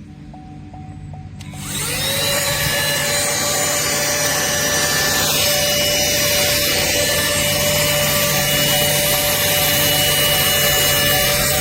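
Cordless handheld mini car vacuum starting up: its small motor spins up with a rising whine about a second and a half in, then runs steadily with a loud rush of air.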